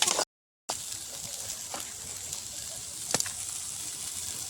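Onions and tomatoes sizzling in hot oil in a pan, a steady hiss with a few sharp clicks, the clearest about three seconds in. The sound cuts out completely for a moment near the start.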